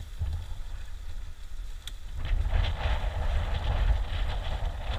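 Wind blowing across the microphone, a steady low rumble that grows into a louder hissing gust about two seconds in.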